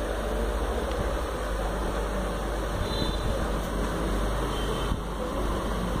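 Steady background rumble and hiss with a low hum.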